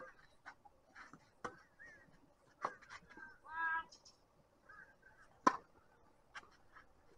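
Sharp pops of a tennis ball struck by a racket and bouncing on a hard court, a few seconds apart; the loudest comes about five and a half seconds in. Faint short squeaks are scattered between them, with a brief honk-like squeak just past the middle.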